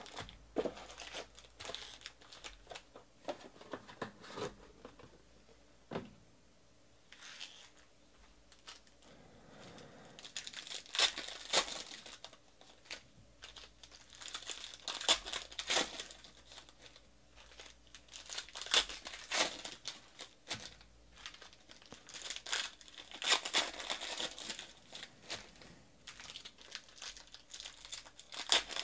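Foil wrappers of Panini Prizm football card packs being torn open and crinkled by hand, in irregular bursts of crackling with short quiet gaps. It is quieter in the first third and busier and louder from about a third of the way in.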